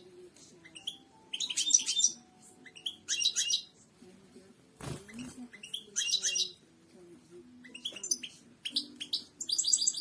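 European goldfinch singing: short bursts of rapid, high twittering notes repeated about every second and a half, with one sharp click about halfway through.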